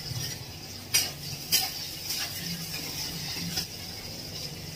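Metal spatula clinking against an iron kadhai while onions are stirred in, with two sharp clinks about a second in and half a second apart and lighter ones after, over a steady hiss.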